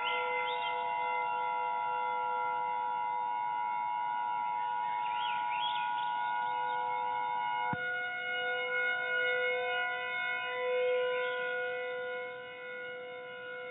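Emergency-alert siren tones: a chord of several steady siren-like tones held throughout, with an emergency alert attention tone (two close pitches) over it for the first eight seconds. The attention tone cuts off with a click, and the siren chord carries on with a few wavering pitches, growing quieter near the end.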